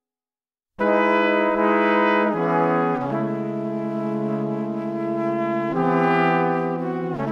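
Music of held, sustained chords that starts abruptly about a second in and changes chord several times.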